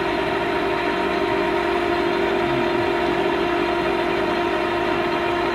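LeBlond engine lathe running with its chuck spinning: a steady machine hum with a constant whine over it.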